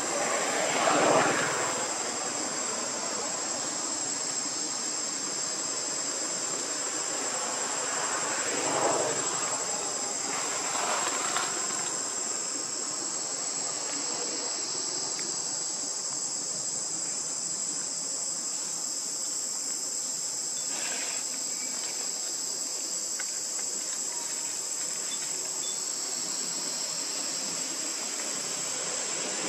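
Steady, high-pitched drone of insects, with a few short louder sounds about a second in and again around nine and eleven seconds.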